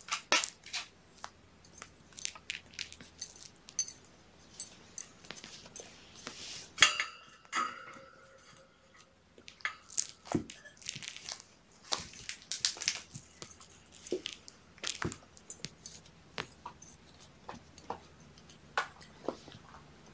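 Irregular small clicks, crinkles and rustles of kittens playing and toys being handled in a kitten pen. About 7 s in comes the loudest sound, a short squeak lasting under a second.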